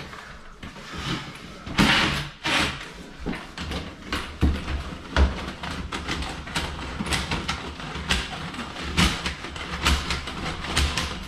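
Closet auger being cranked in a clogged toilet: irregular clicking, knocking and low thumps from the cable and its metal tube as it works against a hard blockage in the trap.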